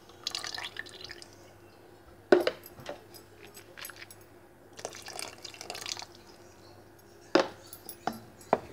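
A thin stream of water poured into a pot of double cream, trickling and dripping, with a few sharp knocks, the loudest just over two seconds in.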